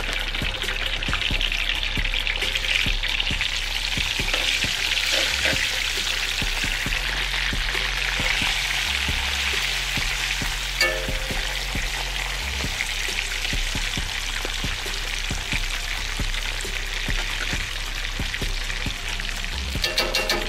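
Frozen rosemary fries sizzling steadily in hot smoked beef tallow in a cast-iron skillet as more are dropped in. There is one sharp click about eleven seconds in.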